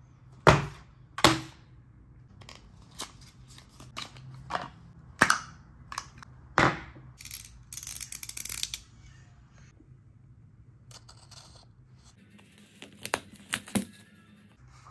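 Utility knife slitting the cellophane wrap on a small cardboard box, heard as a brief scratchy hiss, followed by crinkling of the plastic film. Before it comes a series of sharp clicks and knocks from the box and knife being handled.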